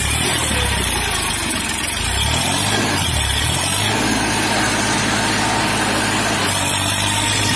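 New Holland 3230 tractor's diesel engine working under heavy load, pulling a loaded trailer up a sandy slope hard enough to lift the front wheels. The engine note shifts and settles to a steadier, even pitch about four seconds in.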